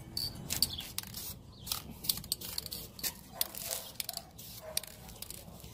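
Aerosol can of clear coat being used on a painted brake caliper: a string of short, irregular hisses and clicks.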